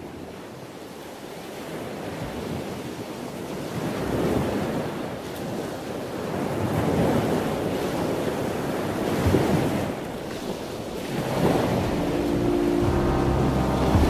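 Sea surf breaking and washing up a fine-pebble beach, growing louder over the first few seconds, then swelling and ebbing every few seconds as waves roll in. Music comes in near the end.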